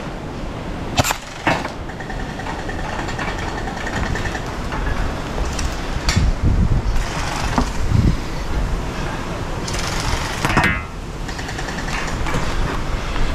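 Steady wind rumble on the microphone, with a few sharp clicks about a second in, again half a second later, and near the middle.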